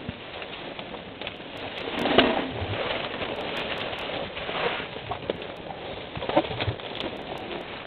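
African elephants feeding right beside the microphone, their trunks rustling through the grass and brushing around the camera tree. The loudest rustle comes about two seconds in.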